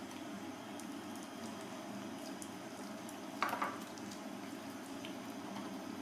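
A kitchen knife working through raw chicken on a wooden cutting board, with faint small ticks over a steady low hiss. About three and a half seconds in comes one short knock, the knife being laid down on the board.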